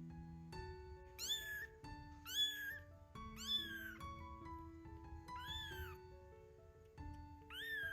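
A very young kitten mewing: five short, high, thin calls, each rising and then falling in pitch, over background music.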